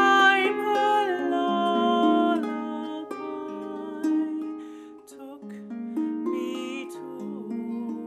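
Small lever harp plucked in a slow passage without words: chords and single notes that ring on and overlap one another.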